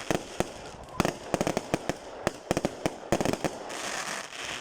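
Fireworks going off: a dense, irregular run of sharp bangs and pops, several a second, giving way to a stretch of hissing crackle near the end.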